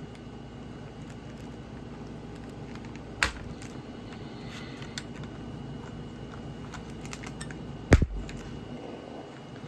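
Faint clicks and scrapes of toy packaging being worked at by hand, over a steady low hum, with a sharp knock about three seconds in and a louder thump about eight seconds in.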